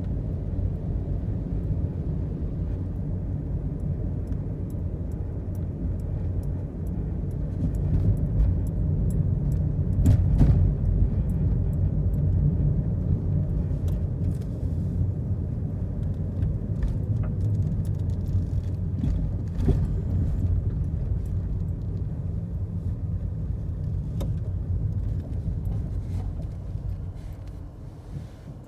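Steady low rumble with scattered small clicks, swelling a little about a third of the way in and fading near the end.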